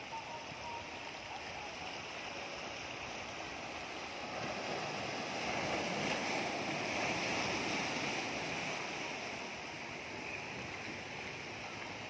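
Sea waves washing over and breaking against a rocky shore, a steady rushing surf that swells louder about halfway through as a wave crashes on the rocks, then eases.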